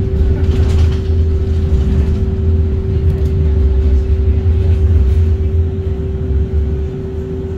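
Inside a moving tram: low rumble of the running gear on the rails with a steady hum from the tram's equipment. The low rumble drops away near the end.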